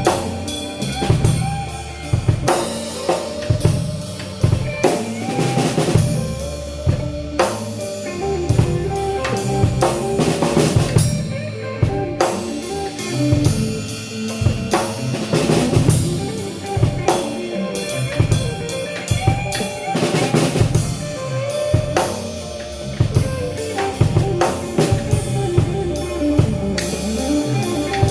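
Band music with a drum kit to the fore: steady kick and snare hits with rimshots, over bass and pitched instruments that move in steps.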